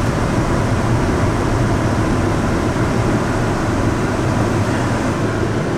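Steady drone of a 2011 Kia Optima heard from inside the cabin while it is driven: engine and road noise with a constant low hum. The car was not warmed up before setting off in the cold.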